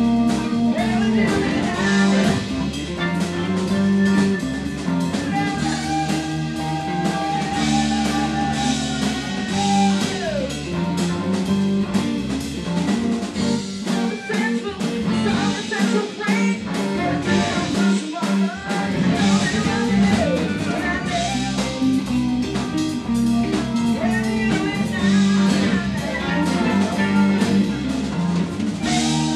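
Live band playing: electric guitars, bass guitar and drum kit.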